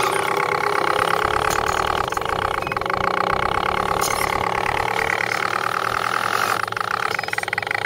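Electric motors and geared drivetrains of several scale RC crawler trucks whining steadily as they climb a loose gravel slope. The whine rises in pitch about four to five seconds in.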